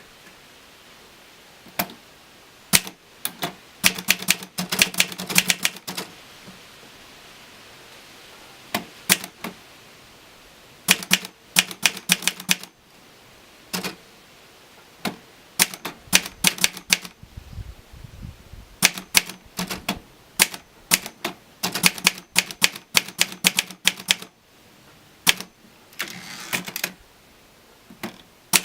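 Olivetti Lettera DL portable typewriter being typed on: runs of sharp key strikes, several a second, broken by short pauses.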